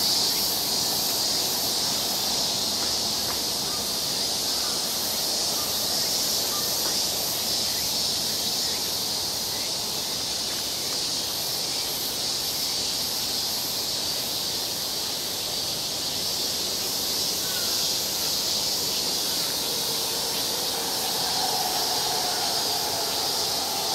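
Steady, high-pitched drone of a summer cicada chorus, with a faint pulsing shimmer above it.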